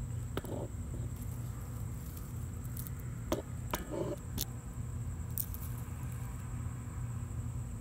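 A handful of light metallic clicks and rattles from a metal grabber tool being tugged while a desert hairy scorpion grips its jaws. Under them runs a steady low hum with a faint, steady high-pitched tone.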